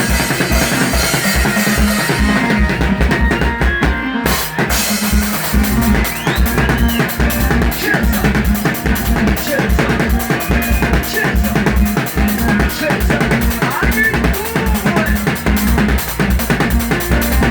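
Band music with a drum kit and bass playing a steady, busy beat. The cymbals drop out for a couple of seconds, then come back with a hit about four seconds in.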